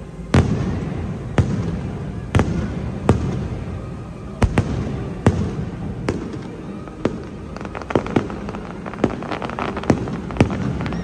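Aerial firework shells bursting overhead: sharp bangs about once a second over a steady low rumble, coming faster in the last few seconds.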